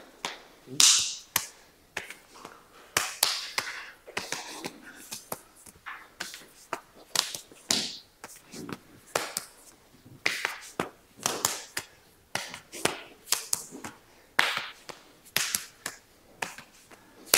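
Palms slapping and brushing against forearms and elbows as two people work a close-range elbow trapping flow drill: a steady run of sharp slaps and taps, about two a second, uneven in strength.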